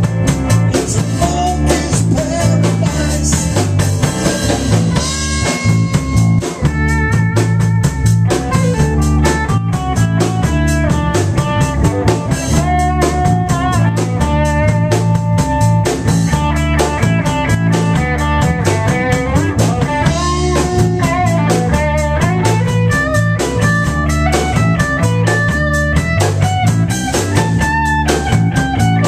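Blues band playing an instrumental break live: a bending guitar lead line over a walking bass line and a drum kit with rimshots.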